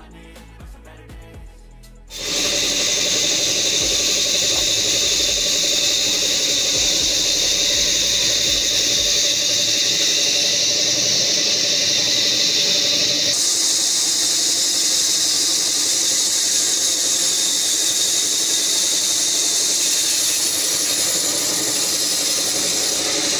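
Electric vertical band saw cutting through a log: a loud, steady, high hiss that starts suddenly about two seconds in, its tone shifting abruptly about halfway.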